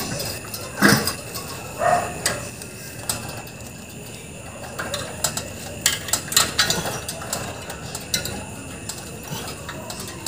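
Scattered clicks, taps and light metal knocks of hands and tools refitting the control board and its wire connectors into an inverter air conditioner's outdoor unit, with one louder knock about a second in.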